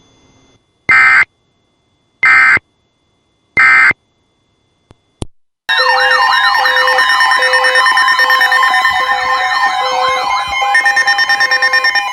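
Emergency Alert System header: three short bursts of data tones in quick succession, then a loud alert signal begins, steady tones with wailing siren-like sweeps and a regular pulsing beep over them, turning to a faster warble near the end.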